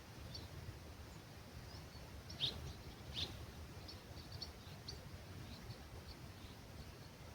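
Small birds chirping at dawn in an olive grove: scattered short high chirps, with two louder, downward-sweeping calls about two and a half and three seconds in, over a low rumble of breeze.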